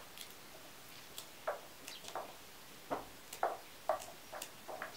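Green beans being handled and broken by hand over metal bowls, the pieces dropping into the bowl: a string of irregular light clicks and taps that come more often in the second half.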